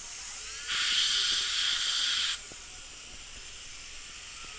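A jet of air hissing for about a second and a half, starting and cutting off abruptly, over a faint steady hiss of dental equipment.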